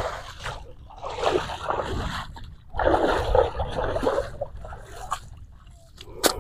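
Water splashing and sloshing in two longer bursts, about a second in and about three seconds in, as the net is worked in the lake water; a sharp click near the end.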